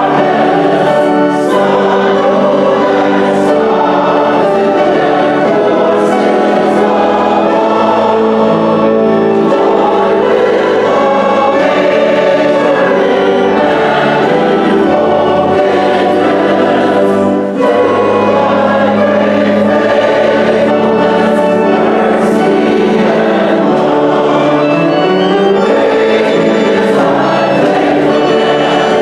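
Church choir singing a hymn in unison and harmony, with held notes changing every second or so and a brief break about two-thirds of the way through.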